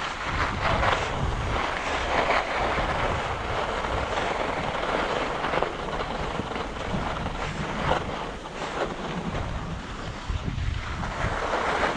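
Wind buffeting the microphone while skiing downhill, with the steady hiss and scrape of skis sliding on the snow.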